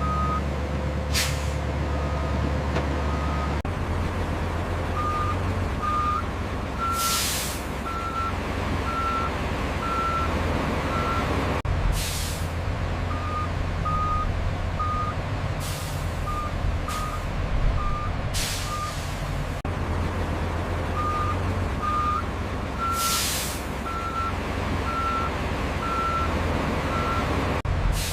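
Dump truck reversing: its backup alarm beeps about once a second over the steady diesel engine, with air-brake hisses several times, the longest about 7 and 23 seconds in.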